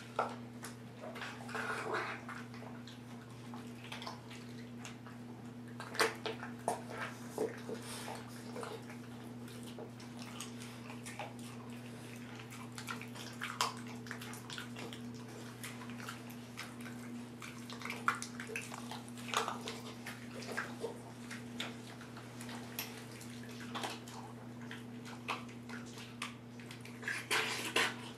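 Bullmastiff puppy lapping water from a stainless steel bowl, with irregular wet clicks and splashes that come in clusters, the busiest near the end. A steady low hum runs underneath.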